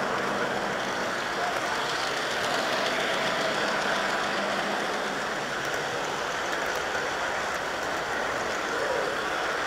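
HO scale model train running along the track, a steady rolling noise heard up close from aboard the moving train.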